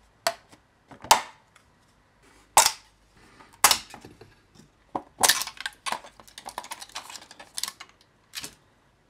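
Hard plastic 3D-printed parts clacking and snapping, about eight sharp knocks at uneven intervals, as they are pulled off a flexible printer build plate and set down on the desk.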